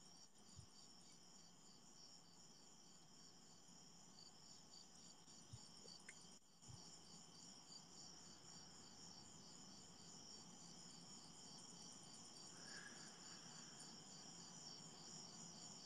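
Near silence: faint room tone under a steady, high-pitched pulsing chirr, with a couple of faint taps about six seconds in.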